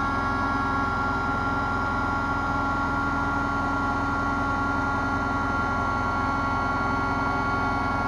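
Small corded electric air pump running steadily while held on the valve of an inflatable PVC boat, drawing the air out to deflate it: an even motor hum over the rush of air.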